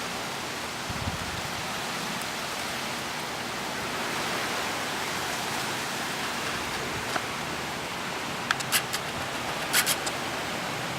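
Steady outdoor hiss of wind and weather, with a few short high-pitched sounds about eight and ten seconds in.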